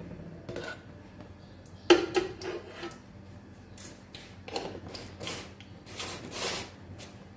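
A metal slotted spoon and cookware knocking against an aluminium cooking pot: one sharp clank with a brief ring about two seconds in, a few quick rattles after it, then several short scraping, rustling sounds.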